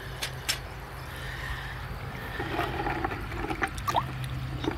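A stone slice clicks twice against a wire rack as it is set down. About halfway through, a hand starts sloshing through a bucket of soapy degreaser water, feeling for more slices, with small knocks among the splashing. A steady low hum runs underneath.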